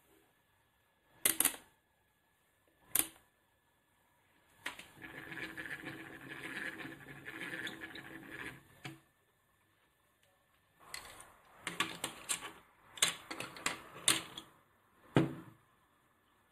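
Handling noise at a workbench: hands working a multimeter, its test probes and the wooden-cased telephone's parts. Two sharp clicks, a few seconds of continuous rustling in the middle, then a quick run of clicks and knocks near the end.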